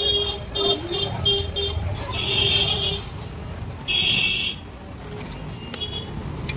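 Vehicle horns honking in street traffic: a quick run of short toots in the first couple of seconds, then two longer honks about two and four seconds in, over a low traffic rumble.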